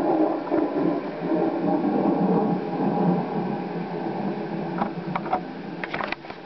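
Low rumbling haunted-house sound effect that thins out after about four seconds, followed by a few sharp clicks near the end.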